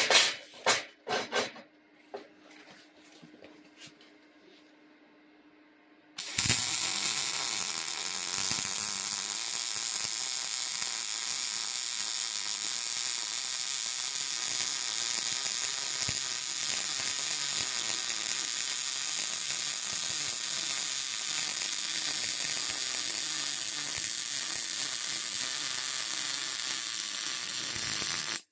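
A few light clicks, then about six seconds in a MIG welding arc strikes and runs a bead for about twenty seconds: a steady crackling sizzle of gas-shielded wire feeding into the weld pool, which stops suddenly when the trigger is released.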